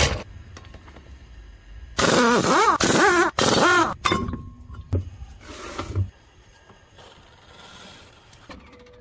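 Power impact wrench spinning off a car's wheel lug nuts, its motor whirring and wavering up and down in pitch for about two seconds, followed by a couple of dull clunks as the wheel comes free.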